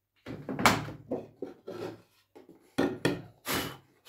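Wooden boards and tools being handled on a workbench: a run of irregular knocks and scraping rubs of wood on wood, with no power tool running.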